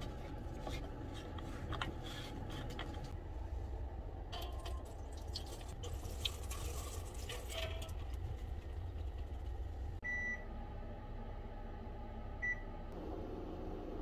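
Plastic cleaner bottle being opened and handled, with clicks and rustling, over a low steady hum. Then two short, high beeps from a front-loading washing machine's control panel as its buttons are pressed, about ten seconds in and again two and a half seconds later.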